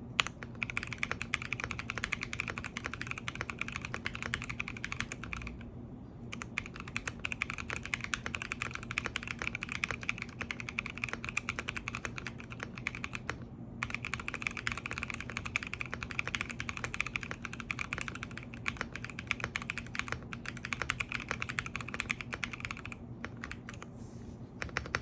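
Fast typing on a GMK67 mechanical keyboard with Blue Velvet linear switches: a dense run of key clacks that pauses briefly about six seconds in, again near fourteen seconds, and near the end, over a faint steady hum.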